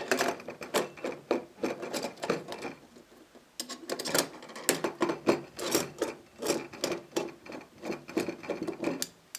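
Screwdriver backing screws out of a trunk's metal latch plate: a quick run of clicks and scrapes, several a second, with a short pause about three seconds in.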